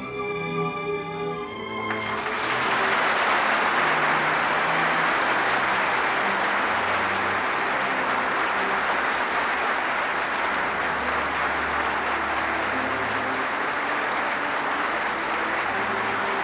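Instrumental background music, joined about two seconds in by a large audience applauding steadily until the end.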